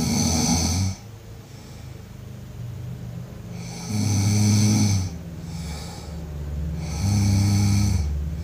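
A sleeping person snoring: three snores about three seconds apart, each a deep rattle with a hissing edge, and quieter breathing in between.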